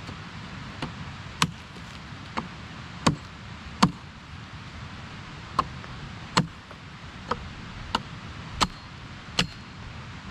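About eleven sharp chopping strokes of a blade on a thin wooden pole, spaced irregularly.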